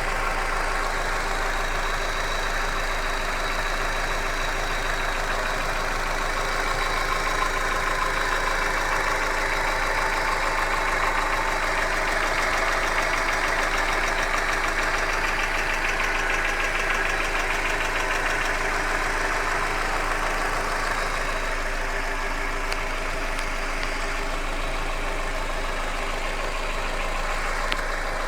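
Hyundai Accent engine running steadily with a rapid ticking knock inside the engine.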